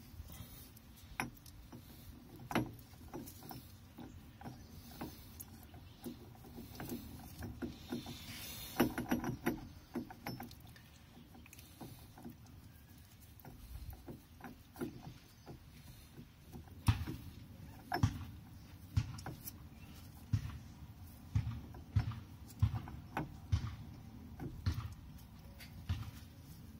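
Output coupling flange of a Velvet Drive marine transmission being worked onto its shaft by hand: scattered clicks and knocks of metal parts. In the last third come evenly spaced knocks, a little more than one a second, as the flange is seated.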